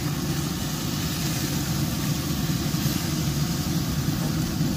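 Steady hum and whoosh of the Brisk It 580 pellet grill's fan running, with a constant hiss over it.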